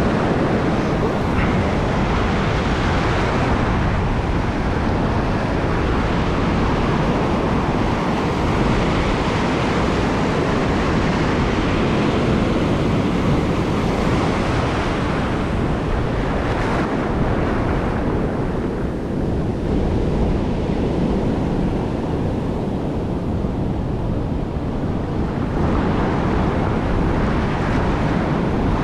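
Ocean surf breaking and washing up a sandy beach: a continuous rush of water that swells every few seconds as each wave comes in.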